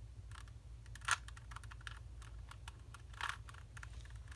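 Plastic Rubik's Cube being turned by hand: a run of quick, irregular clicks as the layers rotate, two of them louder, about a second in and near three seconds in.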